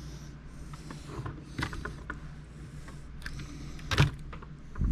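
Hand tools and small parts being handled and shifted while searching for a screwdriver: scattered light clicks and taps, with a louder knock about four seconds in and another near the end. Heavy breathing is heard near the start over a steady low hum.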